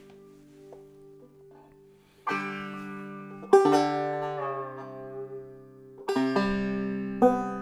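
Banjo played clawhammer style: soft fading notes at first, then four strong chord strokes about a second or more apart, each left to ring out.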